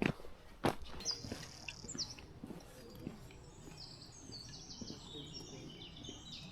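A songbird singing a run of high, clear whistled notes, stepped falling phrases and trills. Two footsteps sound in the first second.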